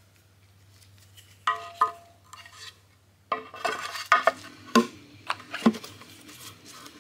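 Metal parts knocking and clinking as a timing cover is fitted onto an LS V8 engine block and a centering tool is pushed onto the crankshaft snout. Two sharp, ringing clinks come about one and a half seconds in, then a quiet gap, then a longer run of knocks and rattles.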